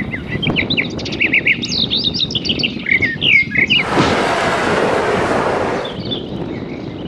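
Small birds chirping and twittering in quick, repeated calls. A little past halfway a two-second rush of hissing noise covers them and then stops.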